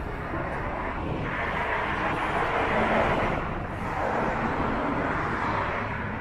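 Road traffic passing: a swelling rush of tyre and engine noise that peaks about halfway through, dips briefly and rises again before easing off.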